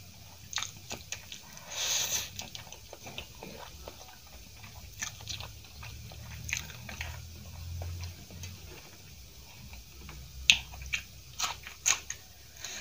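Close-miked chewing of soft instant noodles (Maggi masala noodles), wet mouth clicks and smacks, with a brief slurp about two seconds in. A cluster of sharper, crunchier snaps comes near the end.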